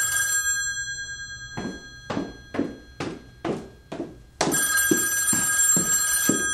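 A telephone bell rings briefly, then footsteps come down a staircase at about two steps a second, and the telephone rings again, a steady ring for about two seconds near the end.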